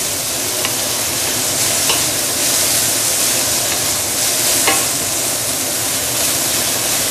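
Sweet potato stems and garlic sizzling in hot oil in a stainless steel wok as a wooden spatula stirs and tosses them. A few light knocks of the spatula on the wok stand out over the steady sizzle.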